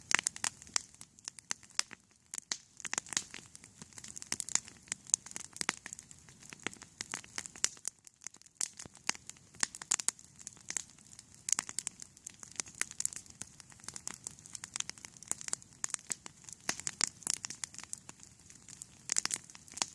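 Campfire crackling: a dense, irregular run of sharp snaps and pops, some much louder than others, with a brief lull about eight seconds in.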